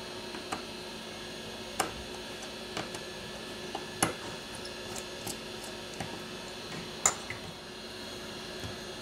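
Scattered small sharp clicks of a precision screwdriver working the tiny screws of a metal bracket on a smartphone logic board, over a steady hum.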